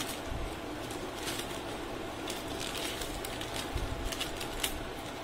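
Quiet room tone with a few faint, scattered clicks.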